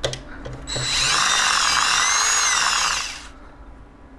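Power drill running for about two and a half seconds as it backs a screw out of the cooling fan's frame on a bitcoin mining ASIC. Its whine wavers slightly in pitch and then stops. There is a light click just before it starts.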